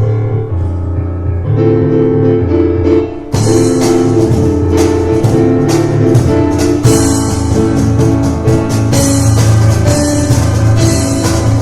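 Piano and cajón playing an instrumental piece: held piano chords at first, then about three seconds in the cajón joins with fast, dense strikes under the piano.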